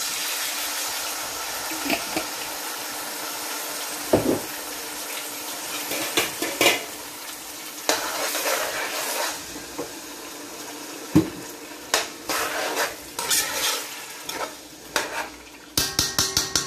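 Vegetables sizzling in a pot while tomato sauce is stirred in with a metal spoon, the spoon knocking and scraping against the pot now and then. A quick run of clicks comes near the end.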